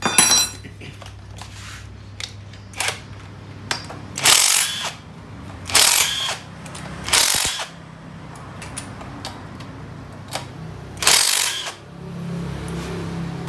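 A handheld power tool working bolts at the top of a Honda Tiger engine, run in six short bursts of under a second each, with a sharp click at the very start.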